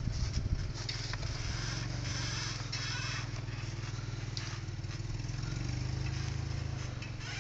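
A truck engine running steadily at idle, its pitch rising a little about five seconds in. Footsteps crunch through snow during the first few seconds.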